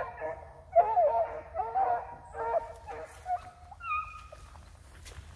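Petits Bassets Griffons Vendéens baying in quick, overlapping calls, a pack of hounds giving tongue on a rabbit's trail. The calls thin out after about four seconds.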